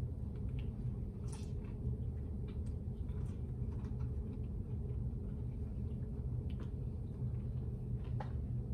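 Quiet eating sounds, a few faint clicks and soft chewing, over a steady low room hum.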